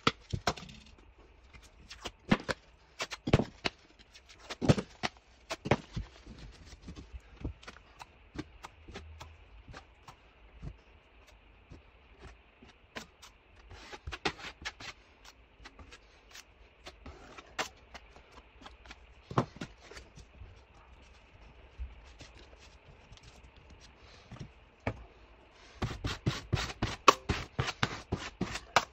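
Hand tools working on drywall. First a utility knife cuts plasterboard and a metal taping knife scrapes in scattered strokes. Near the end comes a quick run of rapid scraping strokes as joint compound is spread over a plasterboard patch.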